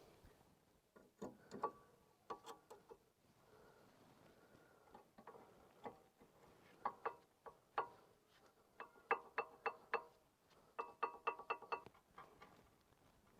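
New brake pads and their metal clips clinking against the steel caliper carrier as they are fitted on a Honda CR-V front brake: scattered sharp metallic clicks, with quick runs of them later on, each ringing briefly.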